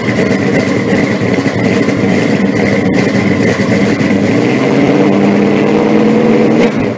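Loud car engine running steadily with a deep, even rumble, starting to fade right at the end.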